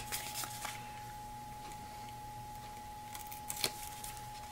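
Faint rustles and light taps of hands handling cardstock and double-sided tape, in two short spells near the start and about three seconds in, over a steady faint hum.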